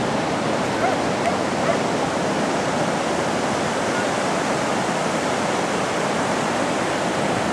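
Ocean surf breaking on a beach: a steady rush of white water from the waves.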